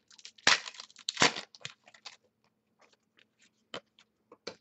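A trading-card pack's plastic-foil wrapper crackling and tearing as it is ripped open, with two loud crackles about half a second and a second in. Then softer crinkles and a few light clicks as the cards are handled.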